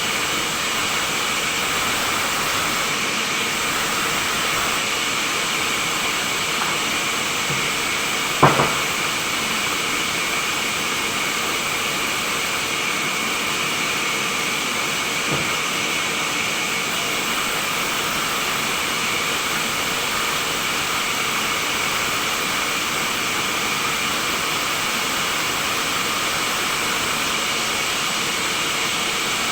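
Sawmill machinery running steadily, a constant even noise with a few held tones, broken once by a single sharp knock about eight seconds in.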